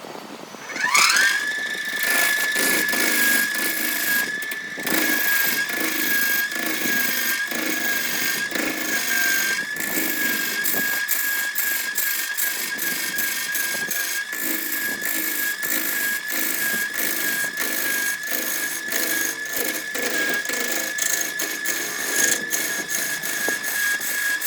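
Electric power tool motor spinning up about a second in, then running at a steady high-pitched whine, with a rapid run of scraping clicks throughout as it works the material.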